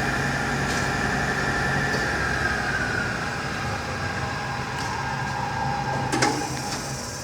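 Hardinge HLV-H-EM precision lathe running under power, its drive whine falling steadily in pitch as the spindle is slowed from high speed. A sharp click about six seconds in, then the sound starts to fade near the end.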